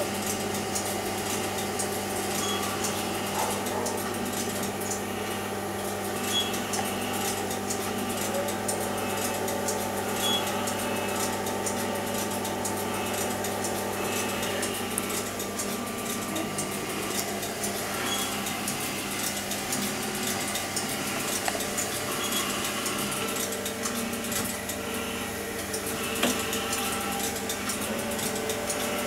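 Steady electrical hum and noise from mains-powered bench test equipment that is switched on and running.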